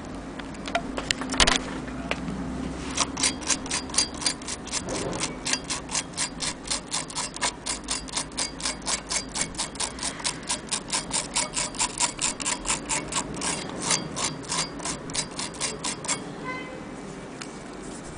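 Keys of a 1930 Corona portable typewriter striking in a steady run of clacks, about four or five a second, after one louder clack near the start.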